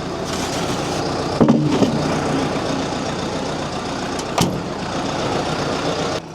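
Tractor's diesel engine running steadily, with a few knocks about a second and a half in and a sharp click a little past four seconds. The sound stops suddenly near the end.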